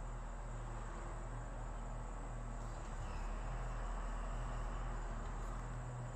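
Steady outdoor background of insect noise over a low hum, with a faint thin tone about halfway through.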